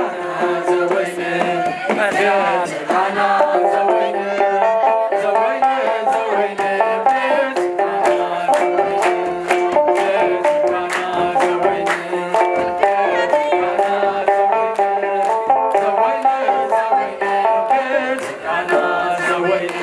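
Eritrean mezmur (church hymn) music: a repeating, plucked-sounding melody over quick, steady drum beats and hand claps.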